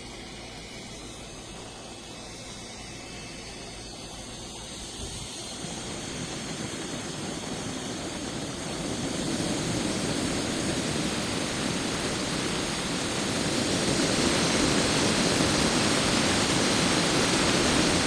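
Handheld turbo fan running with a steady rushing whoosh of air, growing louder in three steps as it is switched up through its speeds.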